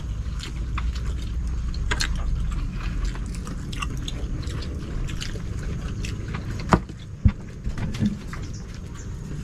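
Scattered clicks and knocks of cooked clam and spider-shell shells being handled and picked apart by hand while eating, with two sharper clicks about seven seconds in, over a steady low rumble that is strongest in the first couple of seconds.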